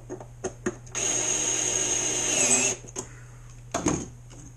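Cordless NoCry electric screwdriver running for about two seconds, driving a stainless hex bolt into the boat's strut mount, with a steady whine that dips in pitch just before it stops. A few light clicks come before it, and there is a knock near the end as the screwdriver is set down on the wooden bench.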